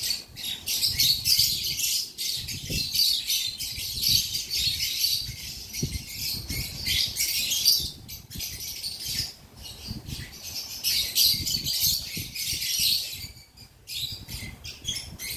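Busy, continuous high-pitched bird chirping and chattering, with soft low thumps from handling mixed in.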